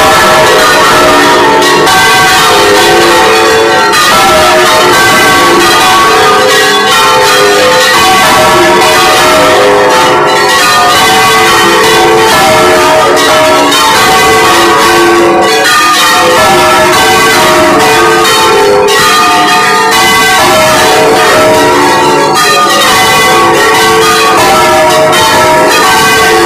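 Several church bells ringing together at close range in the belfry, a continuous, loud peal of overlapping strokes with no pause.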